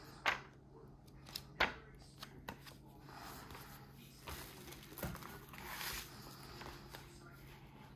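A couple of sharp knocks, the first about a third of a second in and the second about a second and a half in, then lighter clicks and rustling, over a steady low hum and faint voices.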